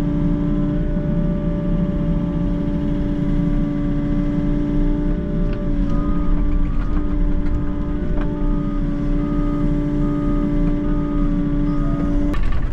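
Volvo excavator's diesel engine running steadily with a constant hydraulic whine, heard from the operator's cab while the arm swings a concrete block. A faint repeated beeping starts about six seconds in.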